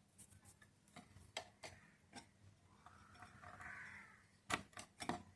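Faint, scattered clicks and taps of computer parts being handled while a CPU cooler installation is finished, with two sharper double clicks near the end. About three seconds in, a faint hoarse sound lasts about a second.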